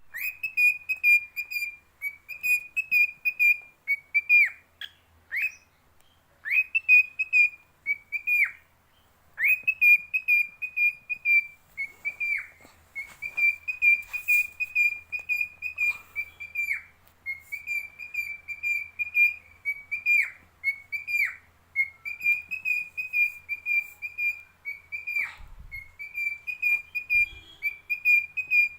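Lutino cockatiel singing: a long run of warbling whistled phrases, each a second or two long, many ending in a quick downward swoop.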